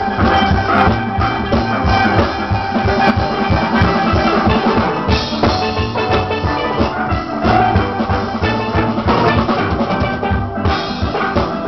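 Steel band playing: many steelpans ringing out a melody and chords over a drum kit beat.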